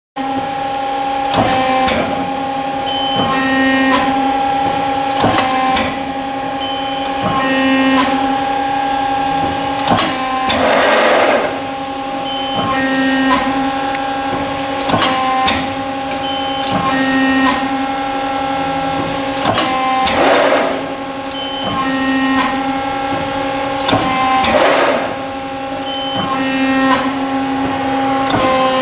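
Hydraulic CNC press brake running: a steady pump hum with clicks and shifts in tone repeating every two seconds or so as the machine cycles, and a few short hissing bursts.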